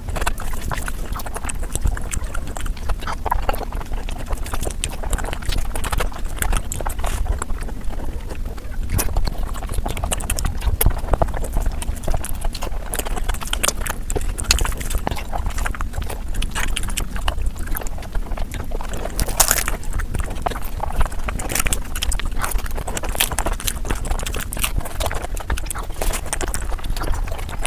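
Close-miked eating sounds of fatty mutton curry played back greatly sped up: a dense, continuous rattle of chewing, lip-smacking and wet mouth clicks.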